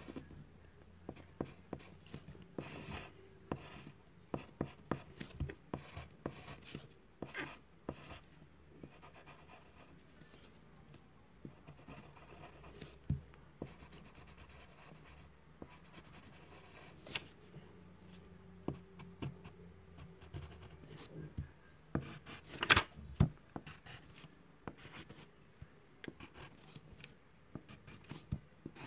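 A drawing tool scratching and stroking on paper in short, irregular strokes, with a couple of louder strokes about three-quarters of the way through.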